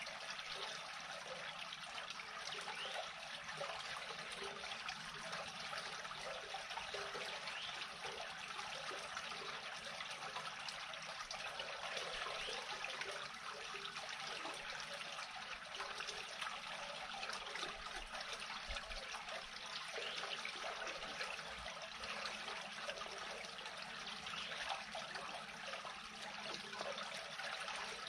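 Steady trickling of creek water draining into a culvert that has just been unclogged, the water running freely through it.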